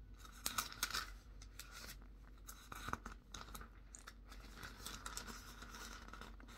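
Thin Bible pages rustling and crinkling as they are turned by hand, with a few sharper page flicks just under a second in and again near three seconds.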